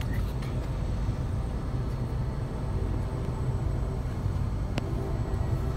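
Steady low rumble of vehicle engines and traffic, heard from inside a car's cabin.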